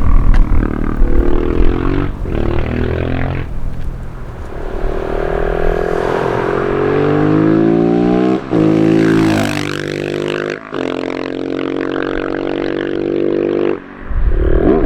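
Husqvarna 701 Supermoto's single-cylinder engine through a Leo Vince exhaust, accelerating hard up through the gears. The engine note climbs in pitch in each gear and is cut by several brief dips at the gear changes.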